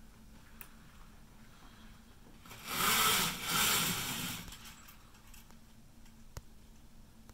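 Horizontal window blinds rattling as they are handled, a noisy clatter of slats lasting about two seconds in two pushes, with a couple of small clicks around it.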